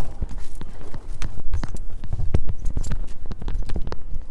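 Container soil being dug through by hand: a run of irregular crunching scrapes and knocks with low thumps, close up.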